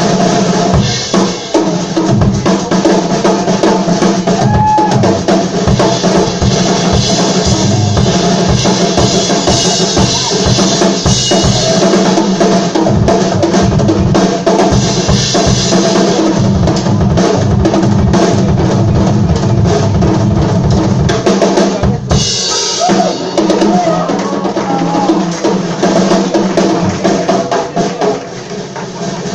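Live band playing with the drum kit to the fore, bass drum and snare driving a fast beat under sustained instruments, with a brief break in the low end about 22 seconds in.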